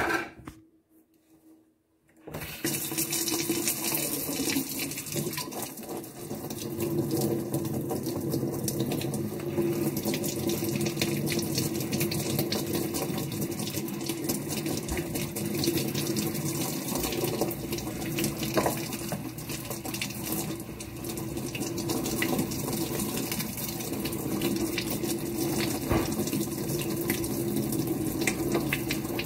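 Kitchen faucet spraying water onto a pleated cone air filter held over the sink, the water splashing off it and pouring into the sink basin as the filter is rinsed clean. The water comes on about two seconds in and runs steadily after that.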